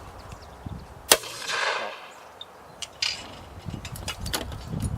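Benelli 828U over-and-under shotgun fired twice, about two seconds apart, each sharp report followed by a trailing echo; the first shot is the louder.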